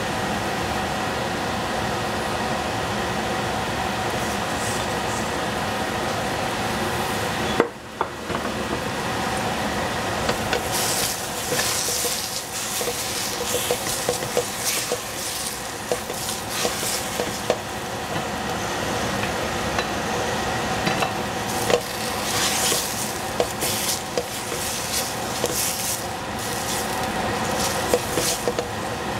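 A steady fan hum, then, after a sharp click and brief dropout about eight seconds in, food sizzling in a frying pan while a spatula scrapes and taps against the pan as it is stirred.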